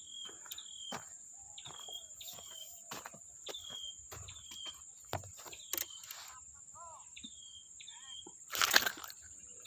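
A small bird calling over and over with short high chirps, set against a steady high-pitched insect drone. Scattered light clicks, and a loud rustle near the end.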